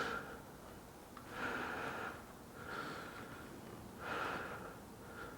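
A person breathing close to the microphone, slow and regular, each breath a soft hiss about every second and a half.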